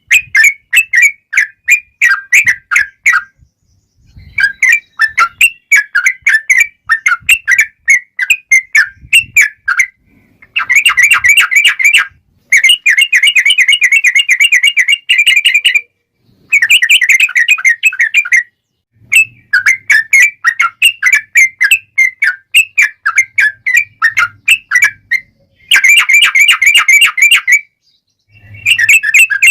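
Yellow-vented bulbul (trucukan) singing in long runs of rapid, chattering notes, the long 'ropel' song, with short pauses between runs.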